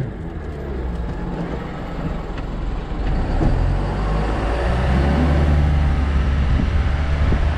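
New Way Mamba refuse truck's diesel engine running as the truck drives, its pitch rising about five seconds in as it picks up speed, with a few knocks and rattles from the body.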